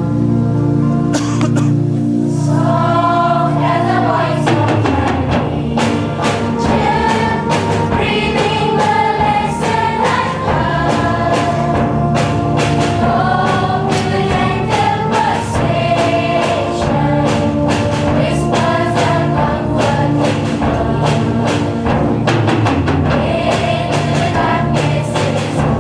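A school choir singing with instrumental accompaniment: a held chord opens it, then the melody moves and a steady beat comes in about five seconds in.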